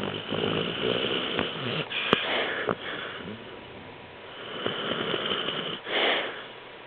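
Sleeping dog snoring: long, noisy, wheezy breaths in swells, the strongest about six seconds in. A single sharp click about two seconds in.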